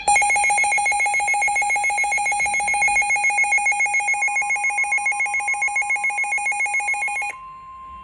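Weather radio alert alarm: a loud, rapidly pulsing electronic tone that stops suddenly about seven seconds in. It is set off by an incoming severe thunderstorm warning. About halfway through, a fainter steady NOAA Weather Radio 1050 Hz attention tone joins in and carries on.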